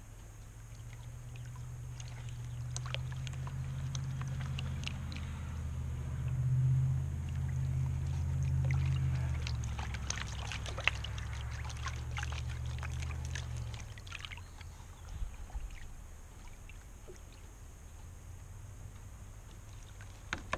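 Water sloshing and splashing as a plastic gold pan is swirled and dipped in a tub of water, washing paydirt down to a concentrate. Under it, a low engine hum builds and then stops about fourteen seconds in.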